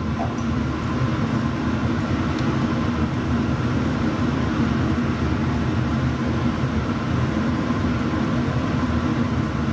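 A steady mechanical hum, like a fan running, with an even tone and no change throughout.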